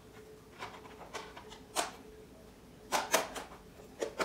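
Short, sharp plastic clicks and taps at irregular intervals, with a quick cluster about three seconds in, as a white filter cover is pressed and snapped onto the rim of a Neewer LED ring light.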